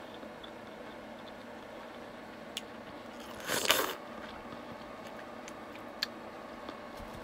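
A juicy bite into a piece of fresh pineapple taken off a fork: one short wet crunch about three and a half seconds in, with a couple of light clicks before and after.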